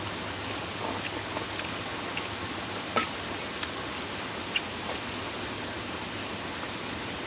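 A steady background hiss with a low hum, broken by a few faint clicks and smacks of people chewing and picking at fried fish with their fingers, the clearest about three seconds in.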